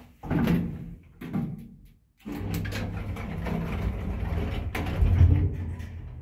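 Old Marvi passenger lift: a few knocks and clatter, then from about two seconds in a steady low electric hum as the lift runs, with a louder low surge about five seconds in.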